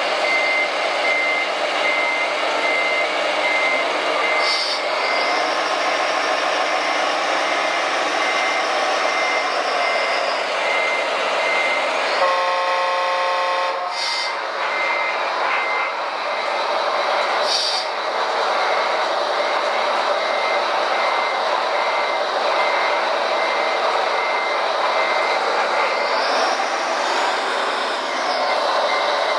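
RC model construction trucks running with their sound modules: a reversing beeper sounds about twice a second over steady motor and gear noise, stopping for a few seconds in the middle while a horn blows for about two seconds.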